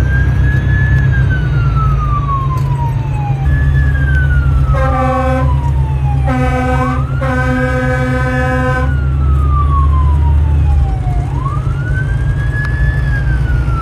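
Fire truck siren cycling, its pitch rising quickly and falling slowly about every five seconds, over the truck's steady low engine rumble, heard from inside the cab. Around the middle come two air horn blasts, a short one and then a longer one.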